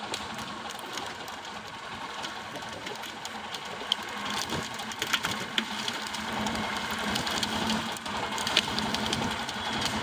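An engine running steadily, left running to charge its battery, with scattered clicks and rattles in the second half.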